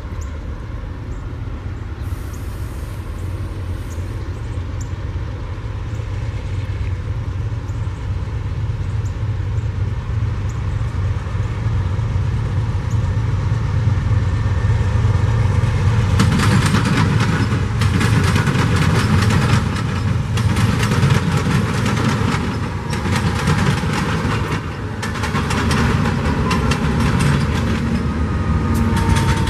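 BNSF freight train approaching and passing: the diesel locomotives' low engine rumble grows steadily louder, and from about halfway through the wheels clatter and rattle on the rails as the lead units draw near and go by.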